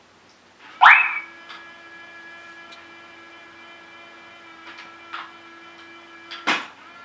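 WOpet smart pet camera's treat dispenser shooting out a treat. A sudden springy twang that rises in pitch comes about a second in. A steady whirring hum with several tones follows, and another loud sharp clack comes near the end.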